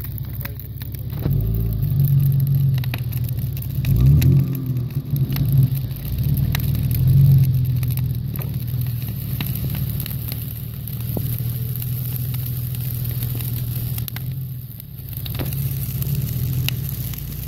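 Jeep Grand Cherokee's engine running under load as the SUV drives into a mud hole and bogs down. The engine revs up and drops back sharply about four seconds in and again around seven seconds, with scattered crackling clicks over it.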